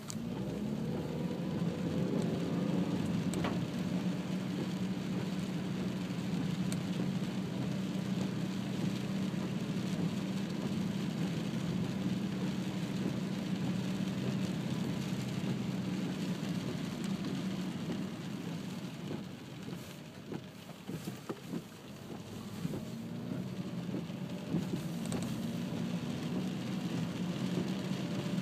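Car heard from inside the cabin, driving on wet pavement in the rain: a steady engine hum under a hiss of tyres and rain. The hum drops away for a few seconds about two-thirds of the way through, then picks up again.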